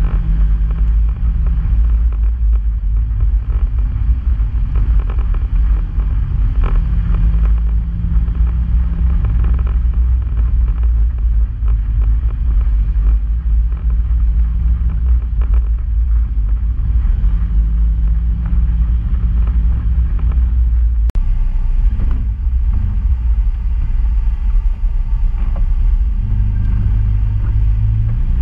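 Polaris RZR side-by-side driving a rough dirt trail: its engine runs with a steady low rumble, the note rising and falling as the throttle changes, with occasional knocks from the bumps, one sharp one about two-thirds of the way through.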